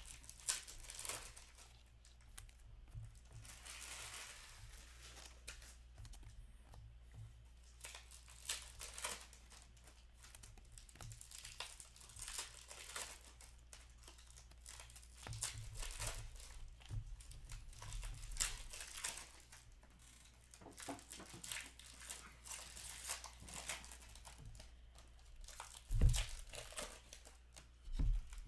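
Trading cards and pack wrappers being handled: rustling, crinkling and tearing as packs are opened and cards flipped through, with scattered small clicks. Near the end, two dull knocks as a stack of cards is tapped square on the table.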